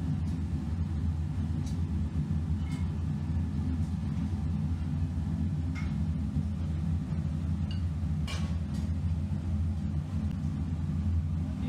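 Gas torch on a long pipe burning inside a sand mould with a steady low rumble. A few faint clicks or knocks sound over it, the clearest about eight seconds in.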